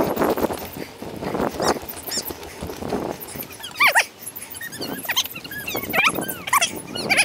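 Bicycle-ride audio played back at four times speed: a rushing noise at first, then from about halfway a run of high, squeaky chirps that slide up and down in pitch.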